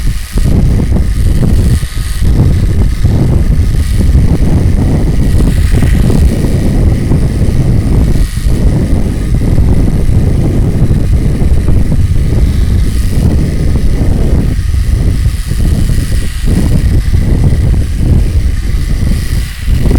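Playing card clipped to a bicycle frame, flapping against the spokes of a turning wheel: a rapid, continuous buzz that imitates a small engine, with a few brief dips in loudness.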